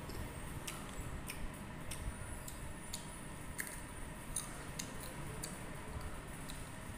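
A person chewing crisp raw green mango, a string of sharp, irregular crunches about one or two a second.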